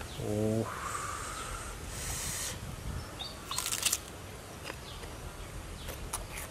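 Crunchy bite into a piece of raw palm heart, a quick cluster of crisp cracks about three and a half seconds in, followed by quieter chewing.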